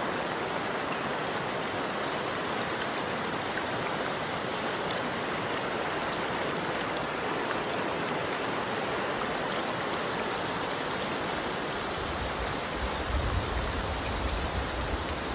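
Shallow mountain creek rushing steadily over rocks and riffles. A low rumble joins in over the last few seconds.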